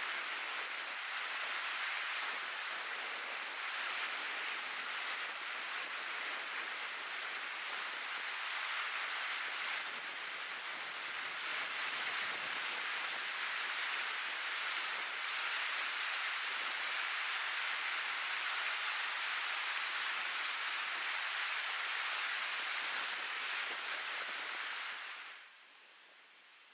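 Surf washing on a beach: a steady hiss of breaking waves that fades away near the end.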